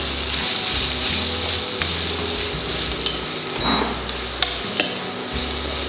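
Tomatoes, onions and ginger-garlic paste frying in ghee, sizzling steadily while a spoon stirs them, with a few light clicks of the spoon against the pan.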